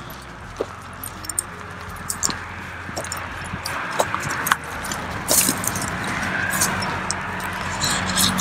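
Footsteps of a walker and a leashed dog crunching over a gravel trail and then through dry grass and brush, the crackling getting louder and busier about halfway through, with light metallic jingling.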